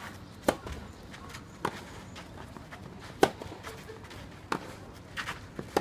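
Tennis ball struck back and forth in a doubles rally, about six sharp pops of racket on ball roughly every second or so, the loudest about half a second in and again after three seconds.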